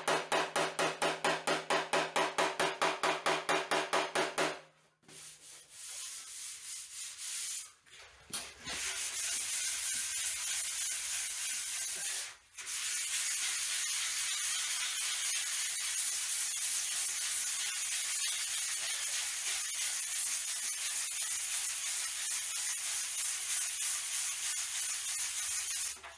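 A hammer tapping rapidly on a car fender, about five blows a second, stopping about four and a half seconds in. After a short pause, hand sanding of body filler on the fender with a sanding block: a steady scratchy rubbing with one brief break.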